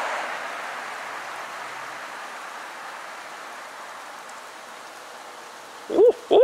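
A broad hiss slowly fades away, then near the end come two loud hoots, each rising and falling in pitch, in the style of a barred owl's call.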